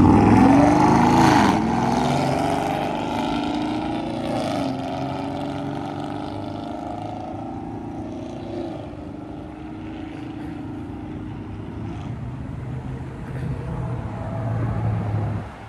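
A loud car passing close by and driving off: its engine note drops in pitch over the first two seconds, then holds as a long drone that slowly fades as the car pulls away. It is loud and annoying.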